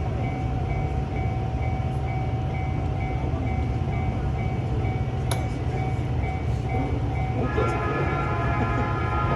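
Japanese level-crossing warning alarm ringing its repeated electronic dings, the signal that a train is approaching, over a steady low rumble. About three-quarters of the way in, a second set of steady tones joins the ringing.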